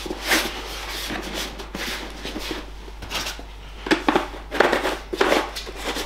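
Hands turning over the plastic casing of a 5 kW diesel parking heater: scattered rubbing, scraping and light knocks, busiest about four to five seconds in.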